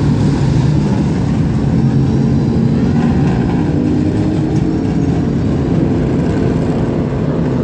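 Limited late model stock car engines running steadily on the racetrack, a continuous loud engine drone.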